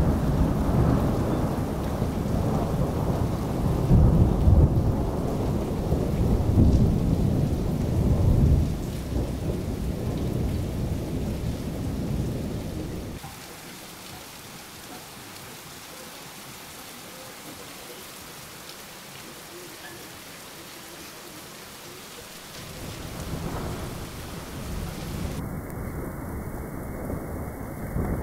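Thunderstorm picked up by a CCTV camera's microphone: heavy rolling thunder over steady rain, swelling several times in the first nine seconds. The rumble cuts off abruptly about halfway through, leaving only the hiss of rain, and builds again near the end.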